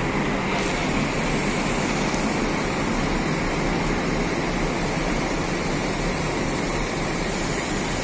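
Steady noise of a Scania K360IB coach pulling away across a dusty dirt lot: engine running and tyres on loose gravel, at an even level throughout.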